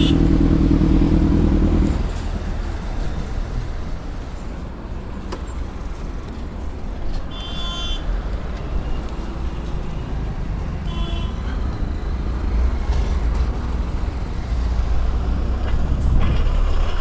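Highway traffic passing close by. An idling engine runs for about two seconds and then stops, leaving the low rumble of passing vehicles with two short horn honks. Near the end the sound swells as a large truck passes close.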